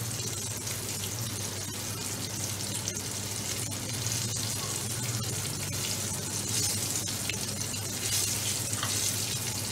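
Cornflour-coated chicken strips sizzling steadily as they shallow-fry in hot oil over medium heat.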